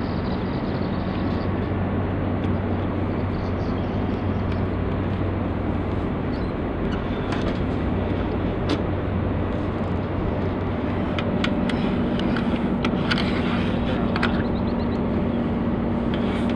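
Steady low engine-like hum over a noisy background, with a few light clicks in the second half as small metal track slugs are handled.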